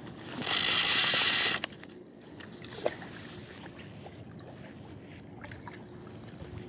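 Fly reel's clicker drag buzzing for about a second, then stopping sharply, with the line moving on a hooked arctic char; a single tick and faint small ticks follow.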